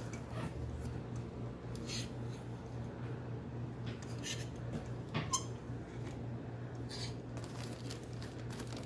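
Metal hanger hooks clicking and scraping along a steel clothes rail as hanging garments are pushed aside by hand: a few separate clinks, the sharpest about five seconds in, over a steady low hum.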